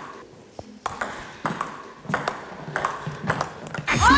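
Table tennis rally: the celluloid ball clicks off the rubber paddles and the table in an even back-and-forth, about one hit every half second to second. Just at the end a loud rising sound cuts in.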